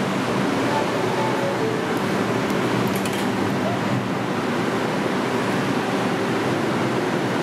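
R142 subway train standing at the platform, idling with a steady rushing noise and a low hum.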